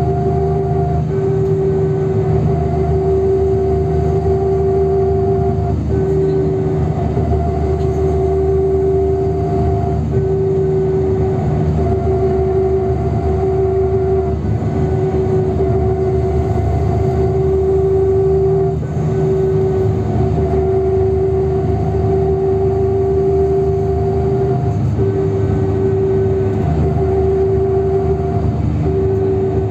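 Inside a NefAZ 5299 city bus cruising at steady speed: constant engine and drivetrain hum with road rumble. A steady whine runs over it and breaks off briefly every second or two.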